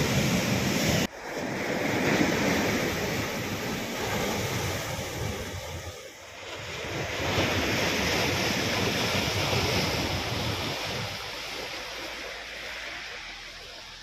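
Rough sea surf breaking and washing ashore, stirred up ahead of a storm. It swells and eases, drops off sharply about a second in, and grows quieter toward the end.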